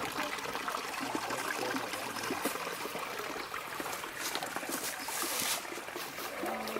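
Water trickling and splashing over rocks in a small stream, a steady running sound with fine crackles.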